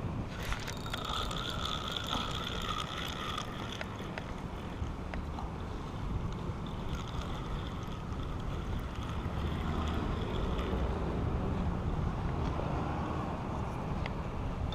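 Wind on the microphone with a steady low rumble, and a steady high whistling tone lasting about three seconds near the start, coming back fainter later.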